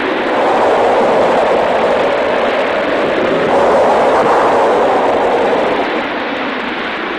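Loud rushing noise with no distinct tones, swelling about half a second in and again around three and a half seconds, easing near the end.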